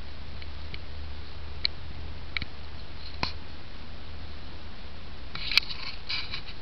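Dry twigs and brush crackling: a few scattered sharp snaps, then a denser burst of crackling near the end, over a steady low rumble.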